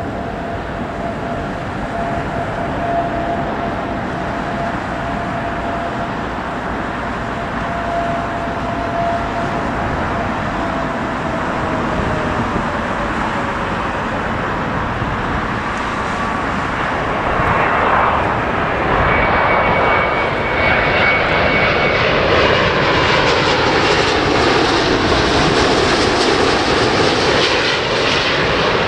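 Boeing 787 Dreamliner on final approach, its twin turbofan jet engines running as the airliner comes in low. The rumble grows louder as it nears, with a steady whine that slowly drops in pitch, and the sound sweeps and swirls as it passes close by near the end.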